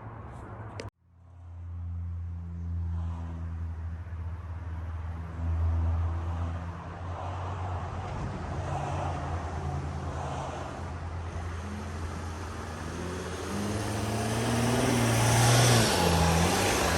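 Mercedes Sprinter van's engine running steadily, rising in pitch and getting louder a few seconds before the end as it speeds up.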